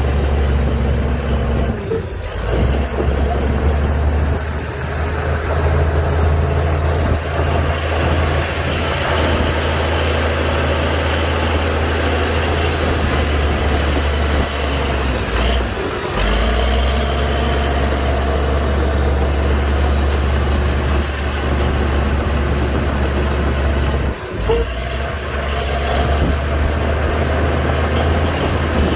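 Heavy diesel engine of earthmoving machinery running steadily, with a strong low hum and a few brief breaks.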